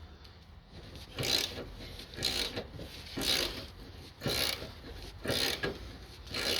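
Hand ratchet wrench being cranked on a rusted bolt, giving a short rasping stroke about once a second as the bolt slowly comes out.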